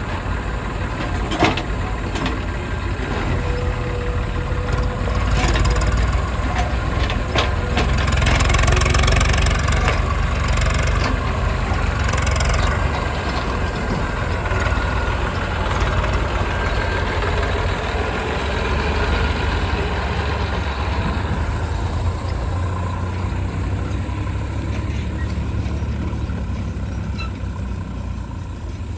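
Diesel engines of a JCB 3DX backhoe loader and tractor running steadily, with a few sharp knocks in the first several seconds and a louder, noisier stretch about eight to thirteen seconds in.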